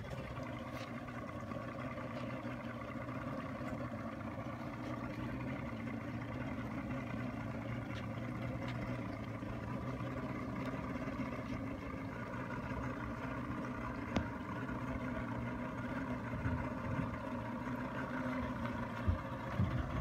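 Motorboat engine running steadily at low speed as the boat comes in to dock. A single sharp click sounds about two-thirds of the way through, and a few low thumps come near the end.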